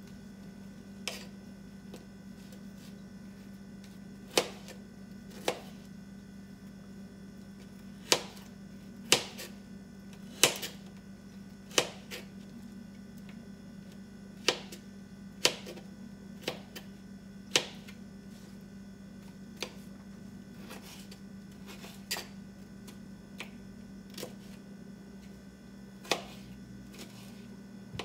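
Kitchen knife chopping an icy, frozen red bell pepper on a thin plastic cutting board: sharp separate taps at an uneven pace, about one every second or two, over a steady low hum.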